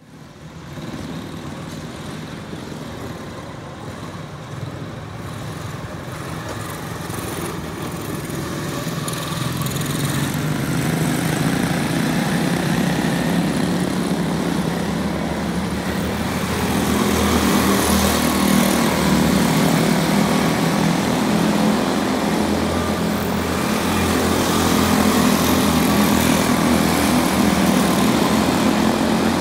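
A pack of quarter midget race cars running laps on a small oval, their small single-cylinder engines buzzing at high revs, getting louder as the cars come closer.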